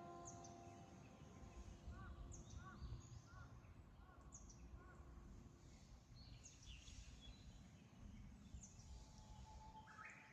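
The last chime note from a distant outdoor public-address loudspeaker dies away in the first second. After that, small birds call repeatedly with short, high, falling chirps, joined for a couple of seconds by a lower, arching call, over a faint low rumble.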